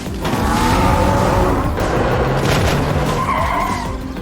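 Cartoon vehicle sound effects: tyres skidding and squealing in wavering pitches, over background music.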